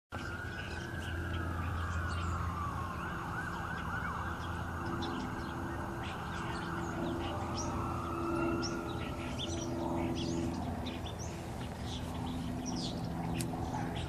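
A siren wailing slowly down and up, over a low steady hum, with small birds chirping briefly and often.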